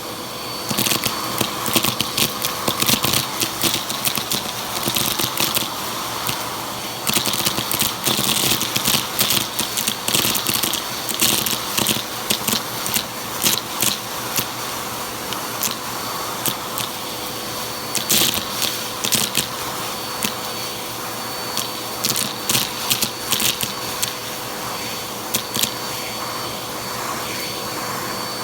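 Vacuum cleaner running steadily while sucking up a crunchy mess, the debris crackling and rattling as it is picked up, in bursts that come and go, with the thickest crackling in the middle and again near the end.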